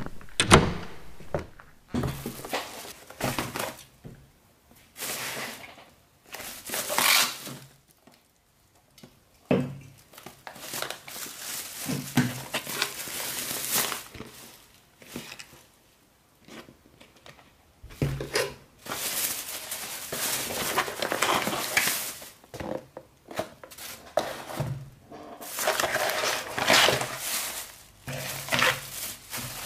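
Plastic carrier bag and paper takeaway packaging rustling and crinkling in irregular bursts as food containers are unpacked, with a few sharp knocks of boxes and plastic containers set down on a wooden table.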